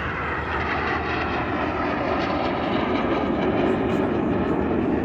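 A fixed-wing aircraft flying past, a steady rushing engine noise that slowly falls in pitch and grows a little louder.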